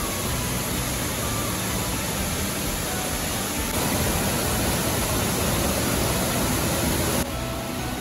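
Waterfalls pouring into a lake: a steady, dense rush of falling water. It gets a little louder about four seconds in and drops to a quieter flow of water about seven seconds in.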